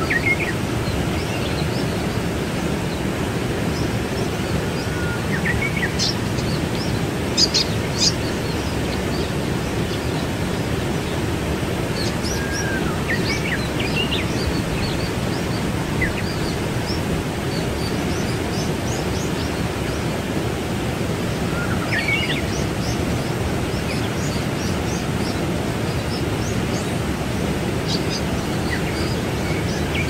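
Waterfall rushing steadily, with birds chirping briefly every few seconds over it.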